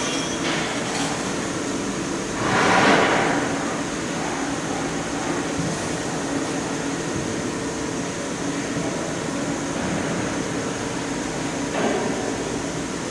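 Steady hum of workshop machinery with a few held tones, with a louder rushing swell about two and a half seconds in that lasts about a second, and a shorter one near the end.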